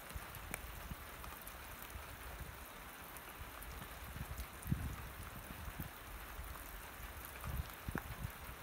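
Steady rain falling: an even hiss with scattered single drops ticking. A few low rumbles come through now and then, the strongest about halfway through.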